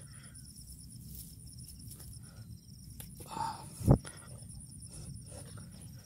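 Faint, steady high-pitched insect chirring, with a single loud, short low thump about four seconds in.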